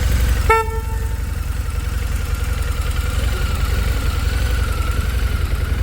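Harley-Davidson V-Rod Muscle's liquid-cooled V-twin idling steadily, with a short horn blast about half a second in.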